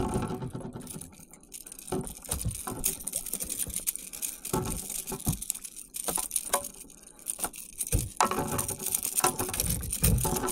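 Irregular knocks, clicks and rustles of a small hooked fish being handled at the side of a kayak: the fish flapping on the line while hands work the hook and tackle.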